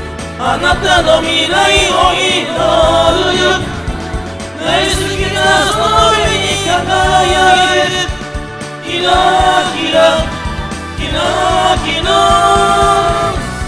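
Several voices singing a J-pop song together over backing music, in sung phrases with short breaks between them.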